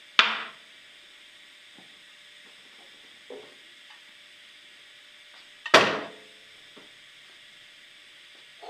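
Kitchen work: a steady sizzling hiss from the stove, broken by a few sharp knocks of a knife and crockery as a tomato is cut on a plate. The loudest knock comes about six seconds in.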